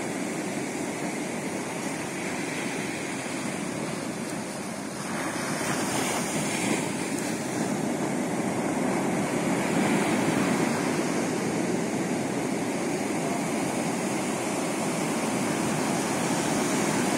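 Ocean surf: a steady rush of waves breaking and washing up the beach, with one wave crashing about five seconds in, after which the surf stays louder.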